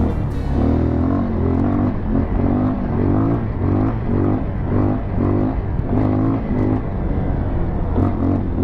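Motorcycle engine revving up and down over and over in quick swells of pitch, pulling the bike through soft, dry sand.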